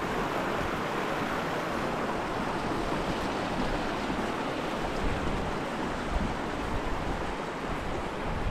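Steady rush of a shallow mountain river running over stones and a small riffle.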